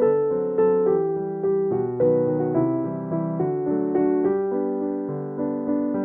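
Background piano music: single notes and chords struck about twice a second, each left to ring and fade.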